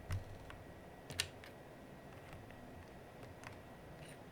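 Plastic keycaps on an Aula F99 Pro mechanical keyboard clicking faintly as they are fitted and pressed onto the switches. A few scattered clicks, the loudest about a second in.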